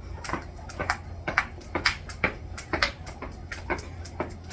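Jump rope skipping: the rope slapping the floor and feet landing in a steady rhythm, about two jumps a second, each made of one or two sharp clicks.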